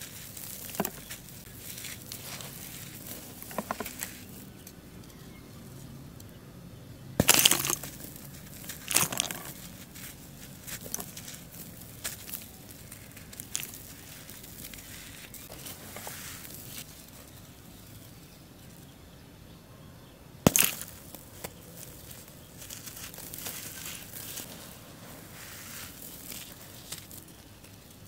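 Crumbled charcoal powder scooped by hand and sifting through the fingers in a soft, gritty crackle, broken by a few loud crunches of charcoal breaking, the biggest at about seven, nine and twenty seconds in.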